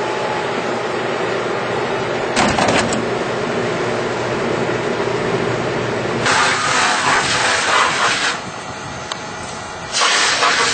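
A machine running steadily with a hum, with a few clicks about two and a half seconds in and a rushing noise that swells, drops away for a couple of seconds near the end, then returns.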